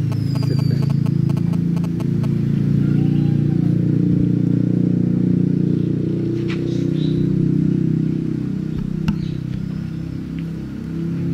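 A motor running steadily, a loud low drone, with a few faint high squeaks and a single click about nine seconds in.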